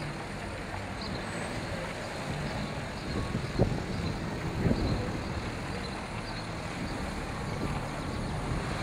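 Passenger cars driving slowly across a cobblestone square, a steady low rumble of engines and tyres on cobbles, with two brief louder thumps about halfway through.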